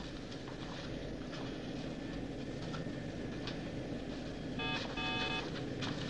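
Low steady electronic hum of a science-fiction control room, with faint clicks, then a short run of computer bleeps a little after four and a half seconds in.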